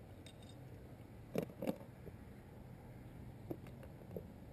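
Light clicks and taps of fishing tackle being handled in a plastic tackle box: two close together about a second and a half in, two smaller ones near the end, over faint steady low background noise.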